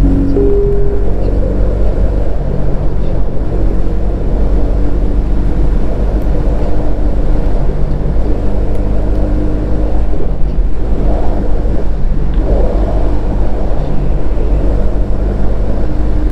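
Bajaj Pulsar N250's single-cylinder engine running steadily, with a low, even exhaust note and no big revs.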